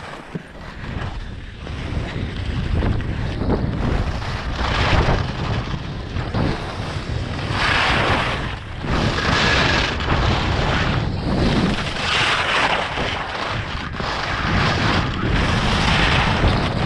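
Wind buffeting the action camera's microphone during a downhill ski run, a steady low rumble, with the hiss of ski edges scraping on groomed snow swelling every couple of seconds as the skier turns.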